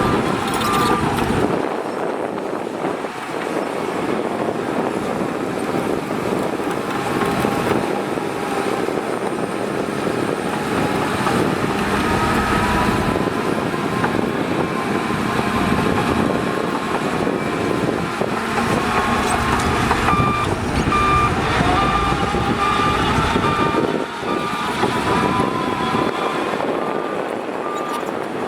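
Heavy diesel earthmoving machinery running under load, a bulldozer and dump trucks, with a reversing alarm beeping at about one beep a second just at the start and again from about two-thirds of the way through.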